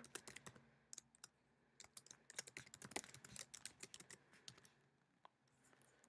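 Faint typing on a computer keyboard: a quick, irregular run of key clicks that thins out and stops about five seconds in.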